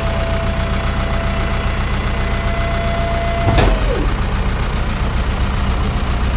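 Truck engine idling steadily. A steady whine over it ends a little past halfway with a sharp clunk and slides down in pitch.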